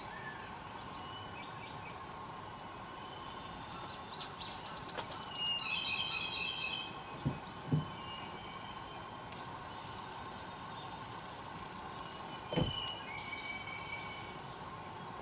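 Several wild songbirds singing, with fast trills of repeated high notes overlapping, busiest from about four seconds in and again near the end. A few short low thumps come in between.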